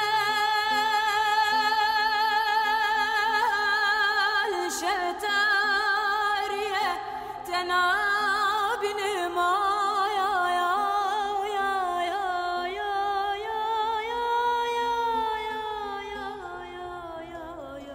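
A woman sings a slow, melismatic lament in the dengbêj style, solo with long held notes and quavering ornaments. A faint steady low tone sits underneath. Her line sinks and fades near the end.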